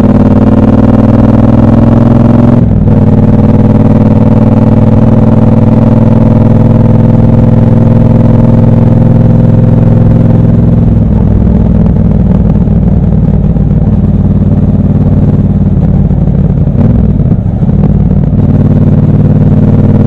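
Triumph 1200 cc parallel-twin motorcycle engine on the move, heard raw from the bike. It pulls with slowly rising pitch, breaks briefly about two and a half seconds in as it shifts up, then runs at steady revs; about halfway through it goes rougher and less even, with a few short dips near the end before steady running returns.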